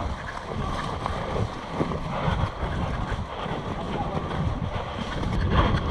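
Wind buffeting the microphone in an uneven low rumble, with faint voices in the background.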